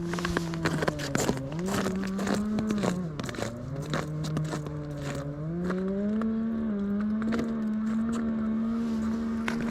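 Power ice auger running and drilling a hole, its motor pitch dropping and recovering several times as it bites into the ice, with scraping and crackling of ice chips.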